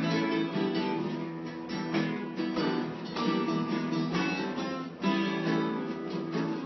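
Acoustic guitar being played by hand, chords sounded in quick repeated strokes.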